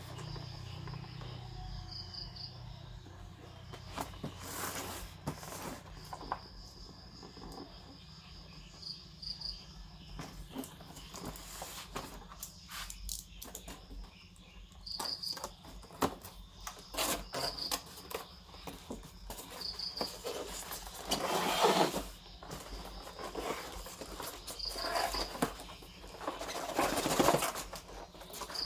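Hands handling and opening a cardboard box: scattered taps and rustles, with louder scrapes of cardboard sliding about two-thirds of the way in and again near the end. A cricket chirps faintly in short pairs every few seconds.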